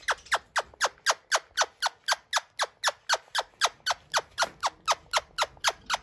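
Indian ringneck parakeet giving a rapid, even series of short, sharp screeches, each falling steeply in pitch, about four a second.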